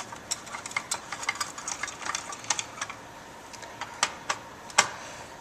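Screwdriver working out the heatsink screws on a computer motherboard: a run of irregular small metallic clicks and scrapes, busiest in the first few seconds, with one sharper click near the end.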